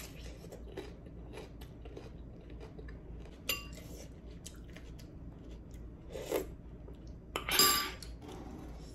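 Close-up eating sounds: a bite into raw cucumber and chewing, with scattered small clicks and a few louder knocks of dishes being handled, the loudest near the end.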